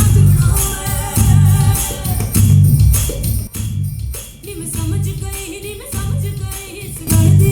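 Recorded song playing with a heavy bass beat, about one thump a second, jingling high percussion and a singing voice.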